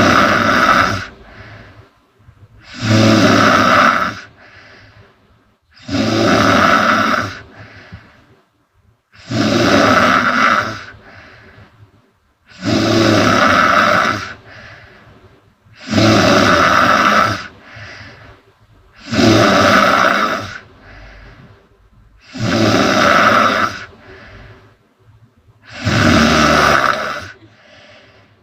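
A woman snoring loudly in deep sleep: nine heavy snores at an even pace, about one every three seconds, each followed by a softer breath out.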